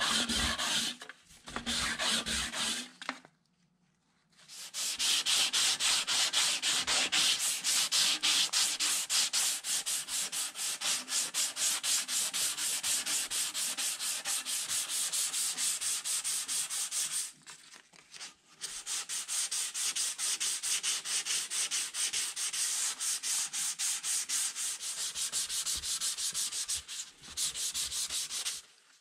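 Hand sanding of the metal canister of an old rusty hand-crank ice cream maker with an abrasive pad, in fast back-and-forth scratchy strokes. It stops briefly about a second in, for about a second a few seconds in, and once more about two-thirds of the way through.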